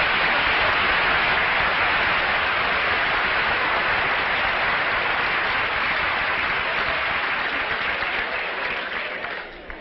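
Studio audience applauding, a long steady round of applause that dies away near the end.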